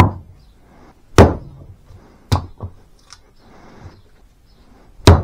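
Kings County camp axe chopping kindling from a block of hard, knotty firewood: four or five sharp chops at uneven intervals, the loudest about a second in and another near the end.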